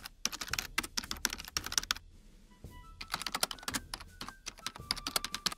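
Rapid, irregular clicking like typing on a keyboard, in two runs separated by a pause of just under a second, with short electronic beeps over the second run.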